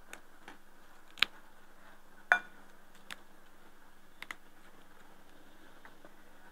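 A steel ladle clinking against the pot and a glass bowl as beef stew is served out: a handful of sharp clicks and taps. The loudest clink comes just after two seconds and rings briefly.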